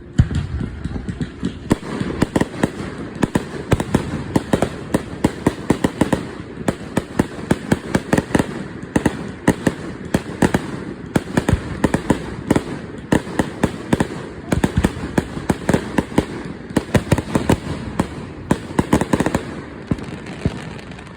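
Fireworks going off in a loud, rapid barrage of bangs and crackles, several a second, opening with one big bang.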